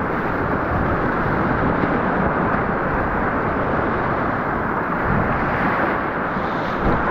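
Whitewater rapid rushing and churning around a kayak in a loud, steady roar of river water, heard up close.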